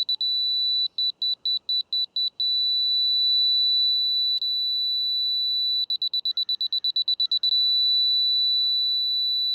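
Laser-level receiver sounding a steady high beep tone, broken twice by runs of fast beeping as it moves off the beam. The steady tone signals it is on grade, set to its fine (micro) sensitivity.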